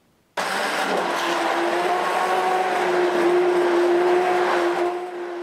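Electric immersion (stick) blender switching on about a third of a second in and running steadily with a motor hum, its blade churning tomato puree and soaked bread chunks in a plastic beaker.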